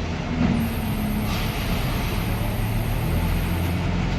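Diesel engine of a backhoe loader running steadily under work, with a brief hiss about a second and a half in.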